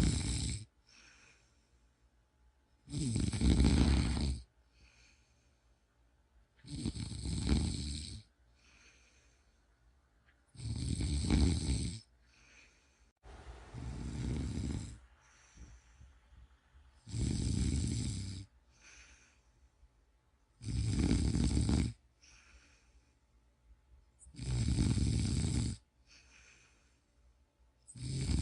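A person snoring in a steady rhythm: a loud snore about every four seconds, each followed by a softer, shorter breath. The snore about halfway through is weaker and breathier than the rest.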